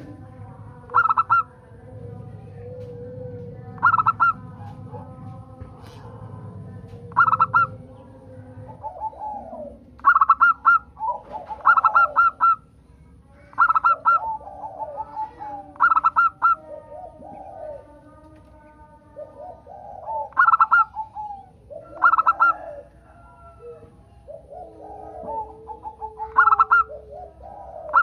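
Zebra doves (perkutut) cooing: short bursts of quick staccato notes repeated every one to three seconds. From about nine seconds in, lower warbling calls fill the gaps between the bursts. A low hum lies under the first nine seconds.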